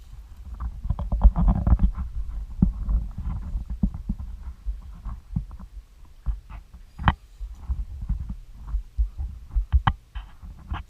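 Low rumbling and rubbing handling noise on a body-worn camera's microphone, broken by many scattered sharp clicks and knocks, with a louder click about seven seconds in and another near ten seconds.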